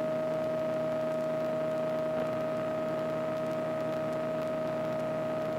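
Steady drone of a KR-2S light aircraft's engine and propeller at cruise, heard inside the closed cockpit as an unchanging hum with hiss.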